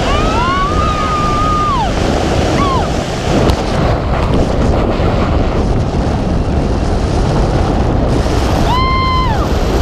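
Loud, steady wind rushing over the camera microphone under an open tandem parachute in steep turns. Over it, the passenger gives one long excited scream in the first two seconds and a shorter one near the end.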